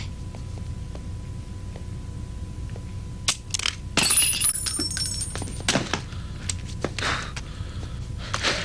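Faint regular ticking, about two a second, over a low hum. About three seconds in come a couple of sharp cracks, then a breaking, glassy clatter with a high ringing, followed by a few lighter knocks.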